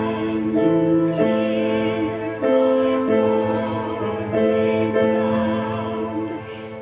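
Music: sustained, non-decaying keyboard-like chords moving from one to the next every second or so.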